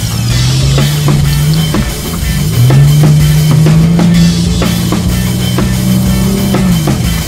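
Music with a drum-kit beat, evenly spaced drum hits over a loud, held low bass line that slides up about two and a half seconds in and back down near the end.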